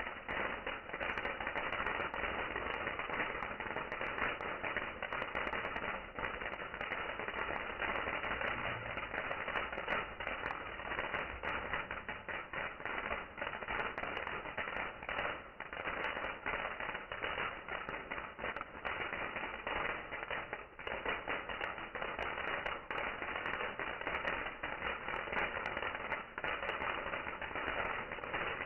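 Fireworks crackling and popping without pause: dense, irregular small cracks over a steady hiss.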